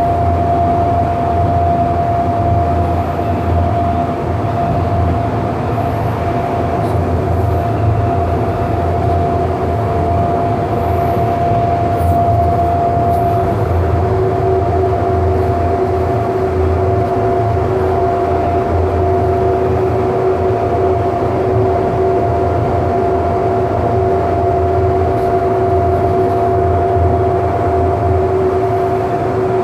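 On board a Siemens S200 light rail vehicle running steadily between stations: a constant low rumble with two steady tones above it, the lower one coming in about six seconds in.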